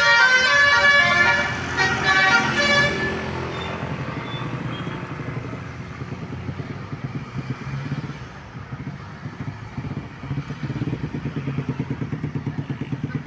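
A Basuri telolet bus horn plays its multi-tone musical melody, then stops about three seconds in. A vehicle engine runs on underneath and grows louder with a rapid pulsing near the end.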